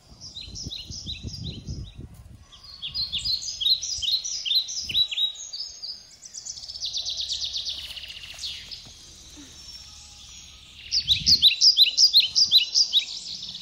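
A songbird singing phrases of quick, evenly spaced downward-slurred chirps, with a faster trill in the middle and the loudest phrase near the end. Leaves and vines rustle low underneath as the gourds are handled, at the start and again about eleven seconds in.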